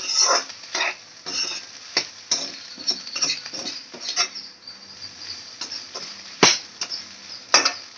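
Metal spatula stirring and scraping scrambled egg around a kadai, with a light sizzle and a run of short scrapes and knocks. Two sharp metallic knocks come near the end, about a second apart.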